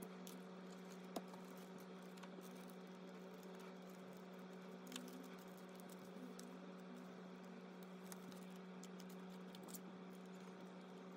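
Soft ticks and faint crinkling of photocards being slid into clear plastic binder sleeves and pressed flat, with a sharp click about a second in. A steady low hum runs underneath.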